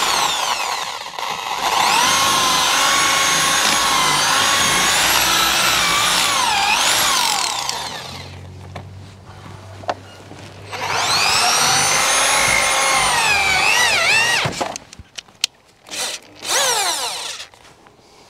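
Corded electric drill boring into the joints between squared timber logs, in two long runs whose motor whine sags and recovers as the bit bites into the wood, then two short bursts near the end. The holes are being drilled out so the joints and cracks can be plugged with sealant.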